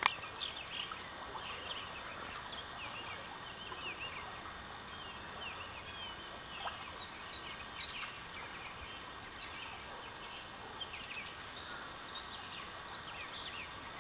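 A flock of birds calling: many short chirps and chattering calls overlapping one another, over a faint steady hiss.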